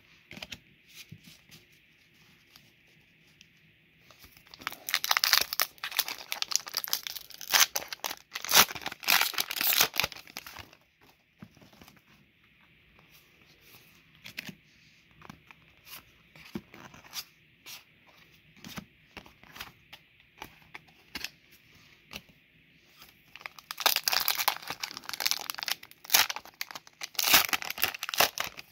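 Foil Pokémon booster pack wrappers being opened and crinkled in two long, loud stretches of crackling and tearing, with soft clicks of trading cards being flipped and handled in between.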